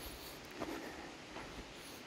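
Footsteps on a dirt and gravel trail, a step about every three-quarters of a second.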